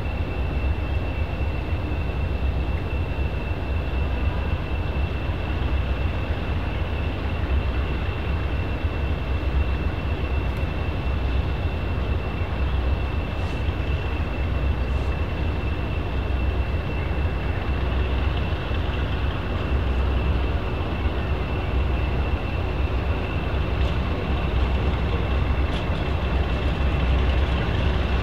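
Diesel locomotive engine running steadily, with a deep throb and a steady high-pitched whine above it.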